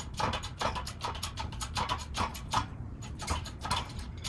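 Quick, uneven clicking and ticking, about three to four a second, from a hydraulic shop press being worked as it presses a front wheel bearing in, smoothly and without strain.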